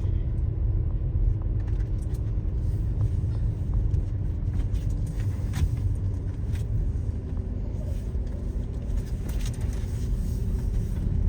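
Car driving slowly: a steady low rumble with a faint hum that slowly drops in pitch.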